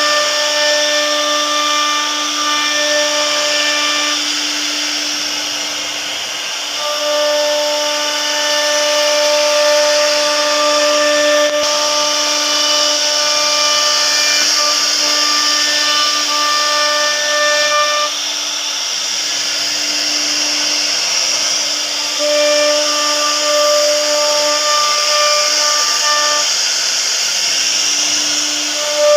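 CNC router spindle running and carving wood: a steady high-speed whine over a constant hiss, with a higher set of tones that drops out for a few seconds at a time, around 4 to 7 seconds in and again around 18 to 22 seconds in, as the cut changes.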